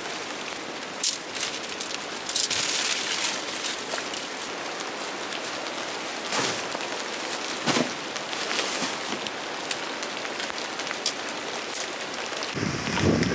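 Steady rain with many individual drops pattering. Near the end the sound changes abruptly to a deeper, heavier rush.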